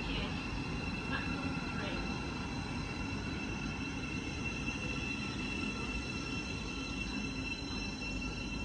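Great Northern electric multiple unit running past on the far track: a low rumble with a steady high-pitched electric whine held over it.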